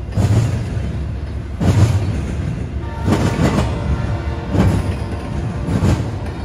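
Double-stack intermodal freight train rolling past: a steady rumble of steel wheels on rail that swells about every second and a half as each set of wheels goes by.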